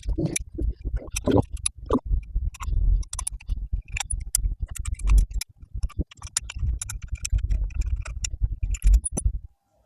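An 8mm spanner loosening the head bolts on a Hitachi air-suspension compressor: a run of irregular, quick metallic clicks and ticks over low handling knocks, which stop near the end.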